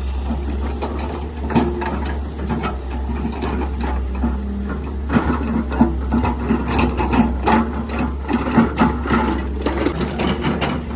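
Machinery running: a steady low hum under a fast, irregular mechanical clatter of clicks and knocks, busier in the second half.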